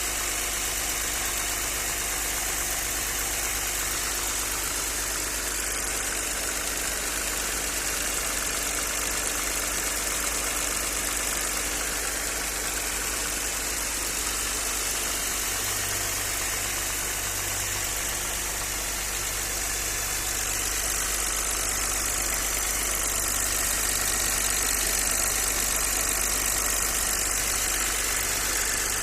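Audi 100 C4's 2.6-litre ABC V6 engine idling steadily, rising slightly in level after about 20 seconds. This is the engine whose owner hears a knock from both cylinder heads when it is cold, and suspects the hydraulic lifters, spun bearing shells or a connecting rod.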